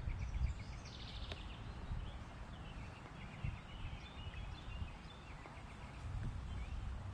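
Small birds calling in quick series of short repeated chirps and trills, over a low rumble on the microphone.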